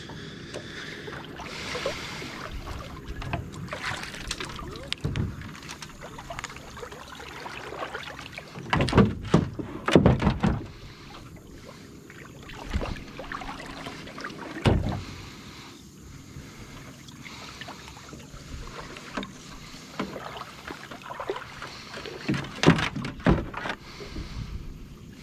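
Water lapping against an aluminium jon boat's hull, with scattered knocks and bumps, a few louder ones around the middle and near the end.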